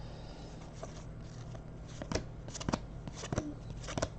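Basketball trading cards being flipped through by hand: a quiet stretch, then a handful of light card flicks and clicks in the second half, over a faint low hum.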